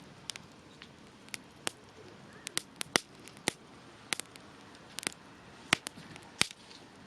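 Wood campfire crackling and popping: a quick irregular run of sharp pops, a few much louder than the rest, over a low steady hiss of the flames.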